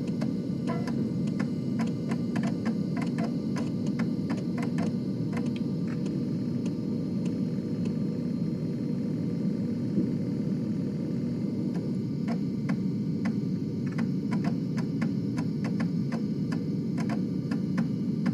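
Floppy disk drive running: a steady low motor hum under irregular ticking and clicking as the read/write head steps across the disk.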